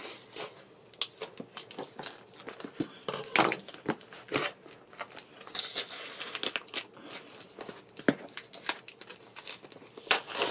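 A Priority Mail package being opened by hand: its paper and plastic wrapping crinkling and tearing in irregular crackles and short rips.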